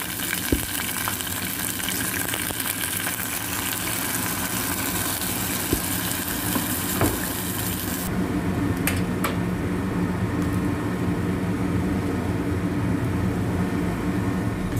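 Stovetop steamer running: a steady hiss of steam and boiling water over a low hum. The higher hiss drops away about halfway through, and there are a few light clicks.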